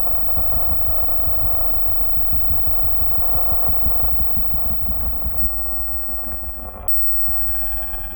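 Horror sound design: a deep, distorted monster growl with a rapid rough flutter, over a heavy low rumble and a faint steady drone.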